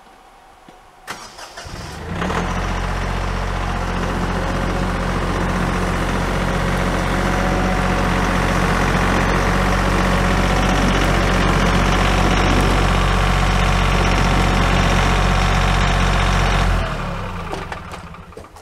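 Compact diesel tractor engine starting about two seconds in, then running steadily as the tractor drives forward, and shut off near the end, winding down quickly.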